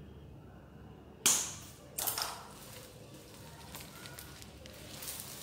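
Plastic basket-weaving strips being handled, with two sharp snaps, the louder about a second in and the second about two seconds in, and light scraping of the strips between them.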